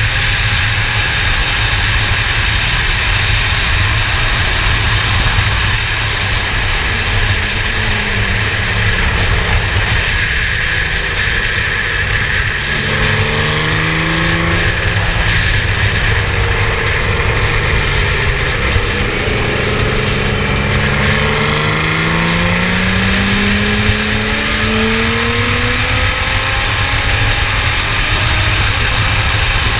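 Formula Yas 3000 single-seater race car running on track over a heavy, steady low rumble. From about twelve seconds in, the engine note repeatedly rises and falls in pitch as the revs change.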